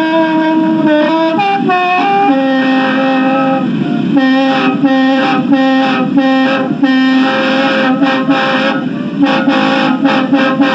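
Khaen, the Thai bamboo mouth organ, being played: several reed notes sound together over a held low drone, changing chords at first, then from about four seconds in the chords pulse in a quick rhythm.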